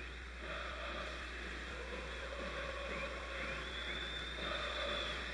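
Stadium crowd noise at a football match: a steady dense din of thousands of fans, with faint drawn-out singing in it.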